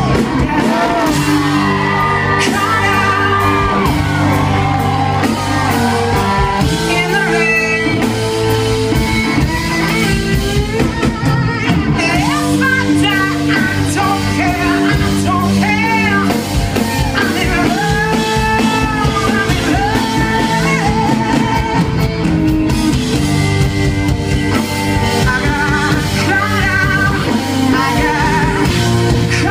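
Live rock and blues band playing loud: a woman singing powerfully into a microphone over electric guitar and the band.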